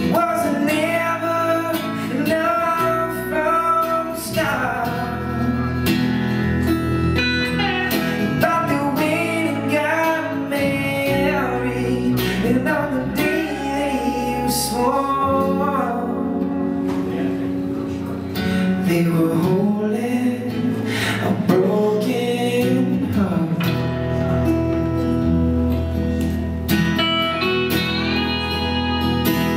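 Live music: an acoustic guitar strumming under an electric guitar playing a lead line, growing louder about eighteen seconds in.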